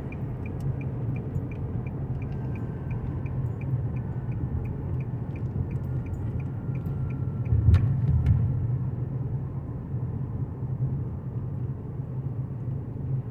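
Steady low road and tyre rumble inside the cabin of a Nissan Rogue driving on smooth pavement, with no wheel-bearing hum heard: the bearing noise is gone. A light regular ticking, about three a second, runs through the first half, and there is a single knock about two thirds of the way in.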